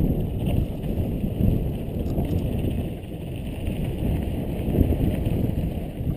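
Wind rushing over a helmet-mounted camera's microphone on a mountain bike descent, mixed with the rumble and rattle of the bike's tyres and frame over a rough dirt trail. The noise swells and dips constantly with the bumps.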